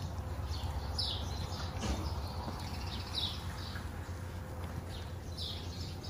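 Goat barn ambience: a steady low hum with short high chirps every second or two.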